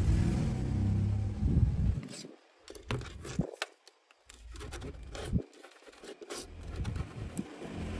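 A loud, low rubbing rumble of handling for about two seconds. Then irregular crackles, crinkles and clicks of black adhesive tape being peeled and torn off a smartphone battery pack.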